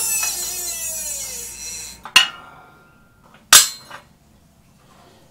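A fading hiss and metallic ring that falls in pitch over about two seconds. Then two sharp clanks of the steel press cup and adapters being handled on a hydraulic shop press, the second louder, about three and a half seconds in. The bushing has just been pressed out of the control arm.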